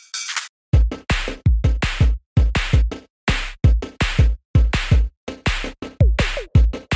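Background music with an electronic drum-machine beat. Light, high percussion gives way, just under a second in, to a steady beat of deep kick drums and crisp hi-hats.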